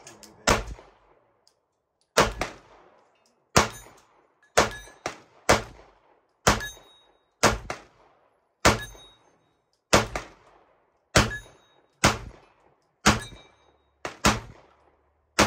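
Gunshots from a firearm fired one at a time in a slow, steady series, about fifteen shots at roughly one a second, each with a short ringing tail.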